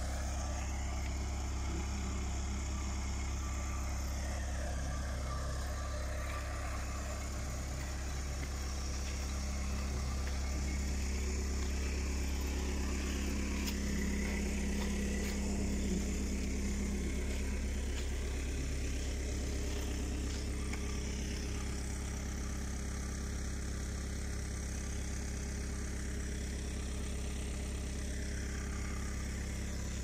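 Excavator's diesel engine running steadily at an even idle, a constant low hum that swells slightly for a few seconds midway.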